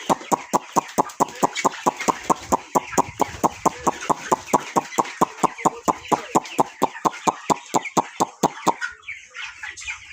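Rapid, evenly spaced metallic-sounding ticks, about five a second, that stop about nine seconds in, over a flock of chickens clucking; after the ticking stops the clucking carries on alone.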